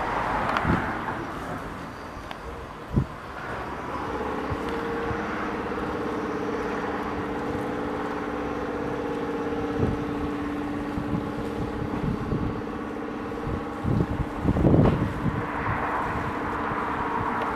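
A steady mechanical hum, like an engine or motor running, sets in about four seconds in and fades near the end, with a few sharp knocks and some wind on the microphone.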